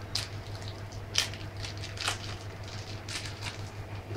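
Thin clear plastic bag crinkling and rustling in short bursts as a phone battery is slid out of it, the sharpest crackles about a second and two seconds in.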